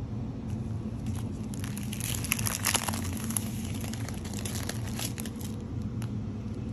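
Plastic crinkling and crackling as a diamond painting canvas is handled, thickest about two to three seconds in, over a steady low hum.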